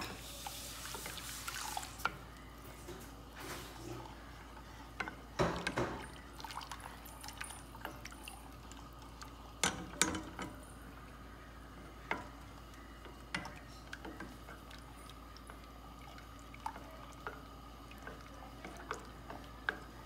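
A spoon stirring a thickening milk and cornflour mixture in a stainless steel saucepan: soft scrapes and taps against the pan with the wet sloshing of the mixture, loudest about five and ten seconds in.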